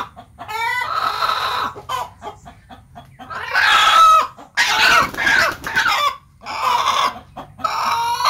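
Chickens squawking and clucking in repeated loud bursts, the loudest and harshest about halfway through, including a chicken held upside down by its legs with its beak open.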